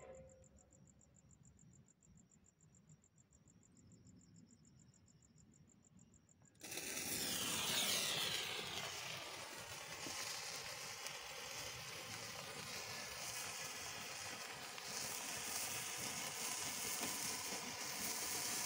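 A 30 cm red sparkler catches from a candle flame about six and a half seconds in, starting suddenly, then burns with a steady fizzing crackle.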